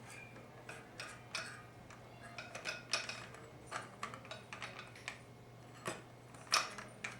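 Irregular light metallic clicks and clinks of 4L60E transmission clutch parts being handled, as the forward clutch assembly is worked against the input drum and its clutch plates. A faint steady low hum runs underneath.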